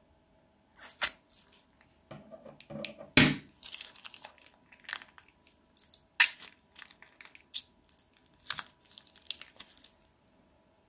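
Scissors snip the corner of a plastic bag of clear tinsel slime, then the bag crinkles as it is squeezed and the slime is pushed out, with several sharp crackles and snaps.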